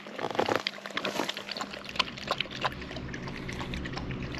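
Weimaraner lapping water from a bowl: quick, irregular wet slurps and clicks. A low steady hum comes in about halfway through.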